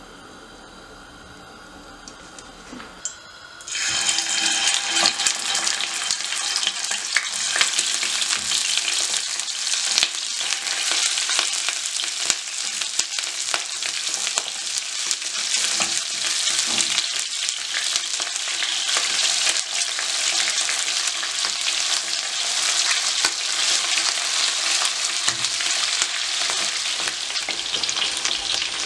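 Raw chicken pieces frying in hot oil in a frying pan. After a quiet start, a loud sizzle sets in suddenly a few seconds in as the first pieces go into the oil, then runs on steadily with fine crackling spits.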